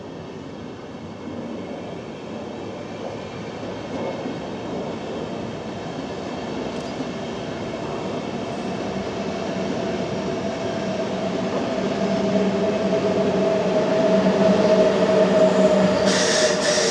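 VR double-deck InterCity train running past on the station tracks, its rumble growing steadily louder, with a steady whine that strengthens over the second half. Near the end the sound changes abruptly to a brighter, hissier train noise.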